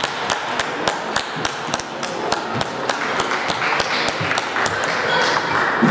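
Table tennis rally: the ball clicking sharply off rackets and the table in quick, irregular succession, with more clicks from play at neighbouring tables, over the murmur of a large hall.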